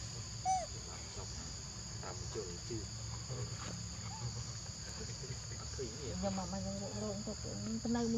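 Steady high-pitched chirring of forest insects, a continuous buzz in two high bands. Faint voice-like sounds come in near the end.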